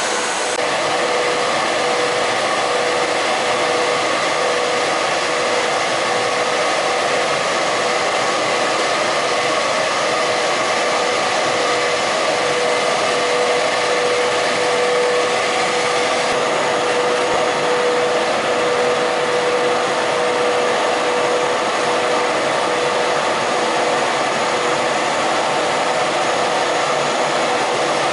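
Blown film extrusion machine running: a steady machine whir with a constant mid-pitched hum.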